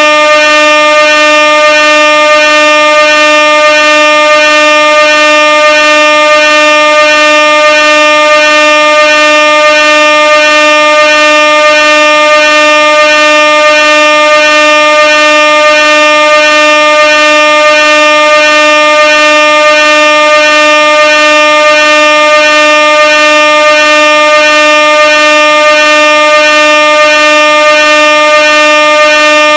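Air horn blaring continuously at one steady pitch, very loud, with a slight regular pulsing in the tone.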